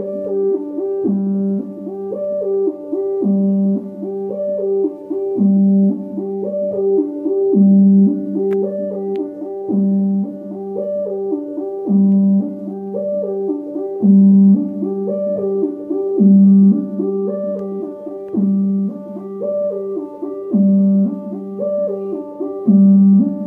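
Roland FA-06 synthesizer playing a steady, repeating musical phrase: a low held note comes back about every two seconds under higher moving notes.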